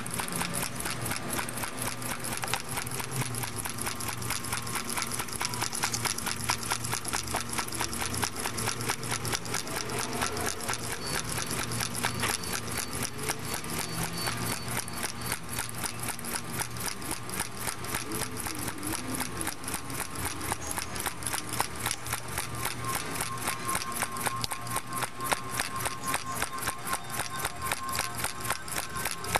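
Homemade soda-can Stirling engine with a rubber diaphragm, running steadily on a small hot plate: its wire crank and linkage tick rapidly and evenly, several ticks a second.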